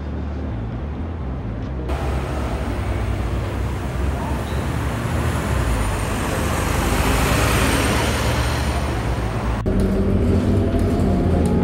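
Street traffic noise, then from about two seconds in a double-decker bus running close by at a bus stop, a loud, even rush that swells towards the middle. From about ten seconds in, the bus engine's steady drone is heard from inside the cabin while riding.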